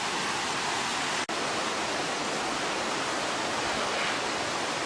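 Waterfall rushing: a steady, even roar of falling water, broken by a split-second dropout about a second in.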